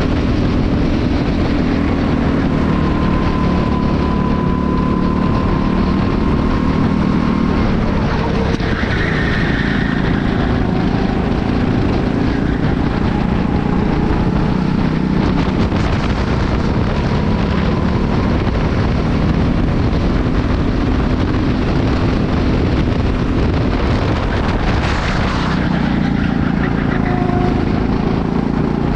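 Onboard sound of a Honda-powered go-kart in a race: its small four-stroke engine running hard and steady, its note easing off and picking up again a couple of times.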